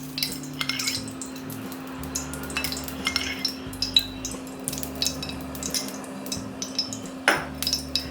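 Metal spoon and utensils clinking and scraping against a cooking pan in scattered light strikes, over a steady low hum, with one sharper knock about seven seconds in.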